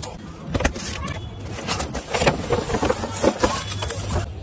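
Cardboard box being cut open and unpacked: a blade scraping along packing tape, then cardboard flaps and packaging rustling, scraping and knocking in a run of irregular clicks.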